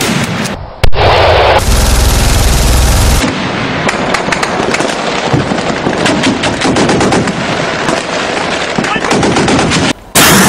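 Rapid gunfire in long bursts of closely spaced shots, after a loud rumbling noise over the first two seconds.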